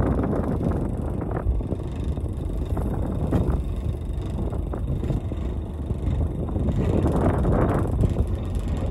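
Wind buffeting the microphone over a steady low rumble on a fishing boat, with a few louder gusts, the strongest near the end.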